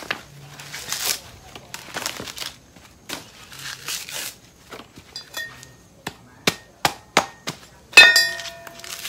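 A dry coconut's fibrous husk tearing and rustling as it is pulled off by hand. Several sharp knocks come later, then a loud strike near the end that rings briefly.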